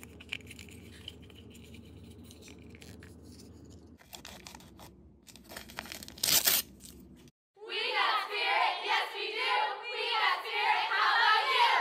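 Foil and plastic packaging being handled: faint rustles and clicks over a low hum, then crinkling and a sharp tearing crackle about six seconds in as a blind-bag foil wrapper is torn open. For the last four seconds a louder, high, warbling voice-like sound takes over.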